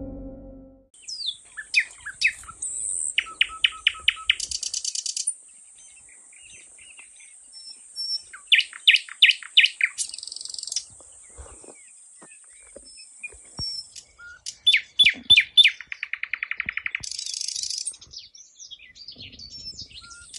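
Wild birds singing and calling: quick series of sharp, falling whistled notes and fast rattling trills, coming in several bouts. Under them runs a steady high-pitched insect drone that stops for a while near the middle and returns near the end.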